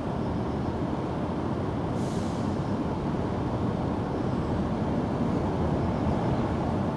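Cat purring steadily right at the microphone, a continuous low rumble.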